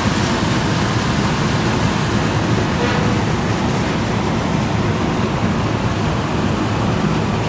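Steady rushing noise of wind and churned harbour water alongside a car ferry, over a low rumble from the ship's engines.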